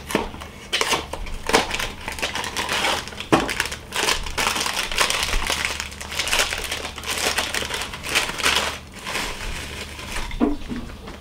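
Plastic inner bag of a mini cereal box crinkling and tearing as it is pulled open, a long run of irregular crackles. Near the end, the shredded wheat is shaken out of the bag into a bowl.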